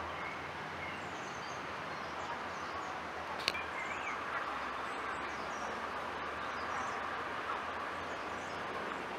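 Steady outdoor background hiss with faint bird chirps scattered through it, and one sharp click about three and a half seconds in.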